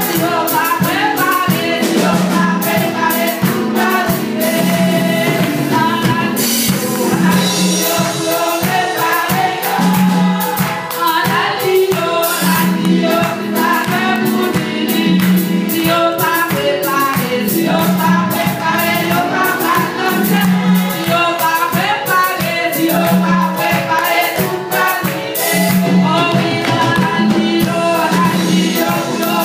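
A women's choir singing a gospel song, with a steady percussive beat.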